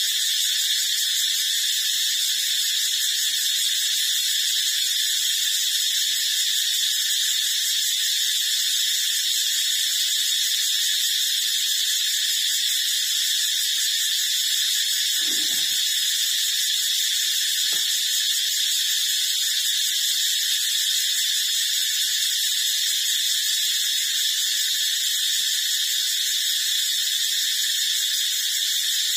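Steady high-pitched hiss that does not change, with a faint short sound about fifteen seconds in and a small click a couple of seconds later.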